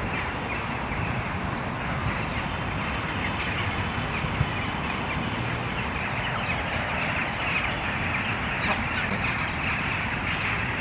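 Rose-ringed parakeets calling, many harsh short calls overlapping in a steady chatter over a low background rumble.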